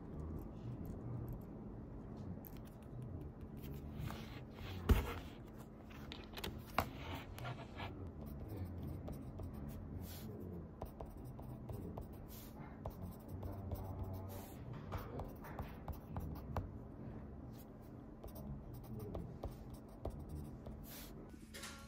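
Pen and pencil writing on paper in a spiral planner: repeated short scratching strokes, with one sharper knock about five seconds in.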